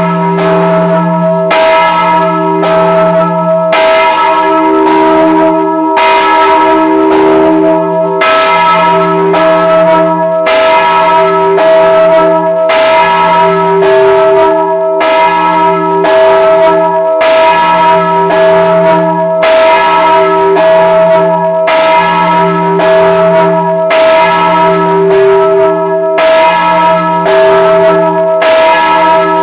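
Church bell cast in 1926, swinging and rung from close by inside its belfry, ringing as the call to mass. The clapper strikes about once a second, and each strike rings on into the next over a steady low hum.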